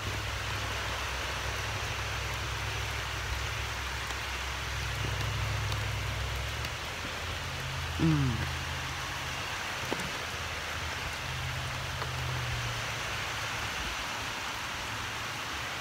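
Steady rain falling on a lawn and yard, heard as an even hiss, with a low rumble underneath that fades out about seven seconds in and briefly returns. A short falling vocal sound about eight seconds in.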